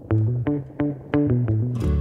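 Background music: a run of single plucked guitar and bass notes, then a fuller band with a steady beat coming in near the end.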